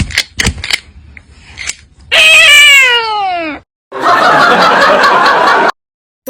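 Edited meme sound effects: a few sharp clicks, then a long pitched sound sliding steadily downward, then about two seconds of laughter that cuts off suddenly.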